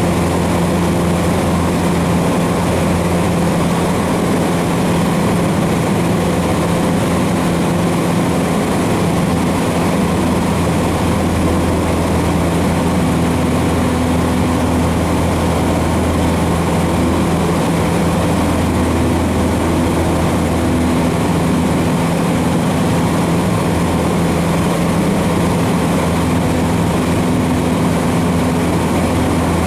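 Cessna 150's four-cylinder Continental O-200 engine and propeller running steadily under climb power after takeoff, heard inside the cabin as a loud, even drone.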